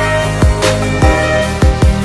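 Background music with an electronic beat: a deep kick drum thumping about every half second under held synth notes.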